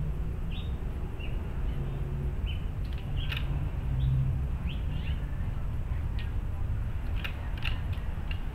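Small birds chirping in short, repeated calls over a low steady background rumble, with a few sharp clicks about three seconds in and again near the end.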